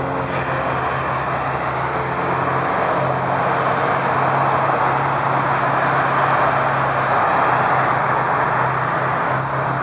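Road traffic: a steady rush of cars driving past on the street, swelling slightly in the middle, over a low steady engine hum.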